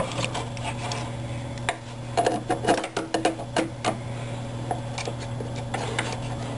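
Irregular clicks and taps of a hand screwdriver and small metal screws and nuts against a plywood frame as an axle cap's screws are tightened, over a steady low hum.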